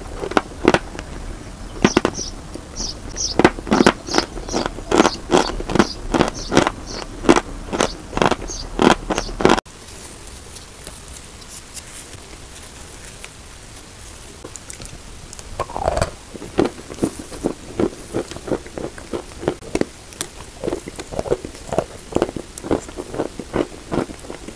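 Chalk being bitten and chewed close to the microphone: crisp crunching about twice a second. After a sudden cut nearly ten seconds in it goes quieter, then comes a bite into a large chalk block and softer crunching chews.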